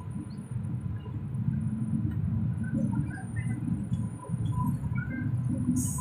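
Running rumble of a passenger train coach on the rails, a steady low noise that rises and falls, with scattered faint chirps above it and a brief sharp hiss near the end.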